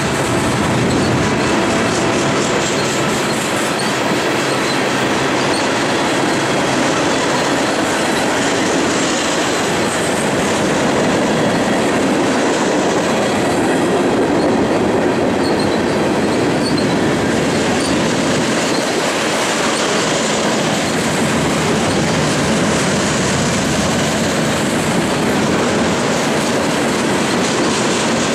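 Mixed freight train rolling past, a steady noise of the cars' steel wheels running on the rails.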